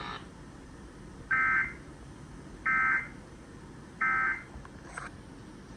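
Emergency Alert System digital data tones heard over FM radio: three short, harsh buzzing bursts about a second and a third apart. These are the End Of Message bursts that close the flash flood warning.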